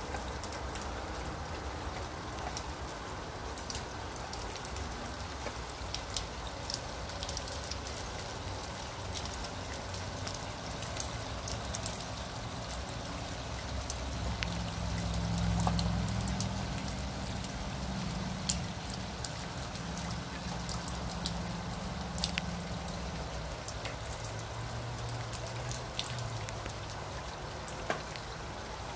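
Steady rain with water trickling and splashing down a metal rain chain hanging from a roof eave, scattered sharp drips and clicks throughout. A low hum rises around the middle and fades before the end.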